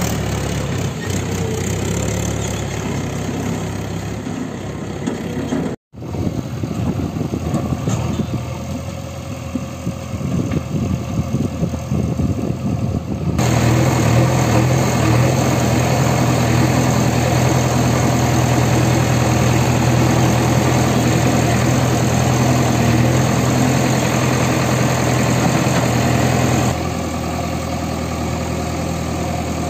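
Diesel tractor engine running steadily, heard up close. The sound changes abruptly three times at edits, about six, thirteen and twenty-seven seconds in, and the stretch in the middle is the loudest.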